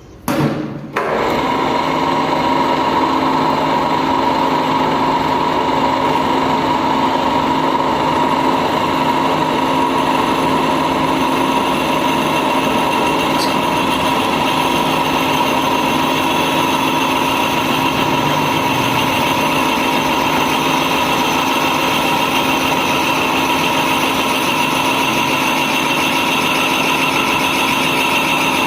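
Lathe switched on with a knock about a second in, then running steadily with a constant hum and whine.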